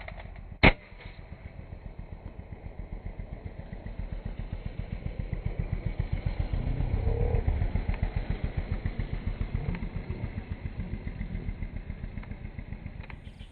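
A single sharp crack just under a second in, then a motorcycle engine running with a rapid, even putter that grows louder towards the middle and fades away.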